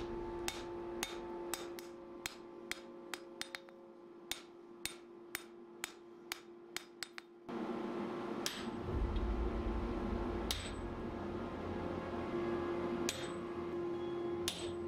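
Hand forging: first a run of light, sharp metallic taps, then, from about halfway, four heavy sledgehammer blows about two seconds apart, struck on a handled top tool held against hot steel on the anvil.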